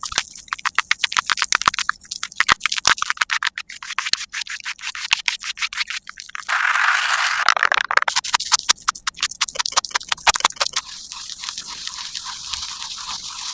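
Makeup ASMR sound effects: a rapid run of sharp taps and clicks, a dense scraping stretch about six and a half seconds in, then more clicks and a steady high hiss near the end.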